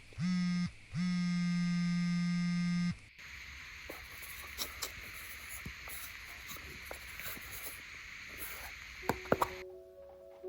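An electric buzzer sounding twice, a short buzz and then a steady buzz of about two seconds that cuts off suddenly. A hiss with light clicks follows, and a few sharp clicks come just before soft music starts near the end.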